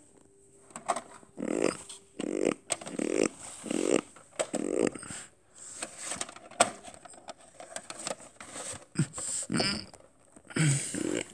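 Plastic VHS clamshell case being handled, with sharp clicks near 3 and 7 seconds in; the one near 7 seconds is the loudest. Indistinct low vocal sounds recur about once a second throughout.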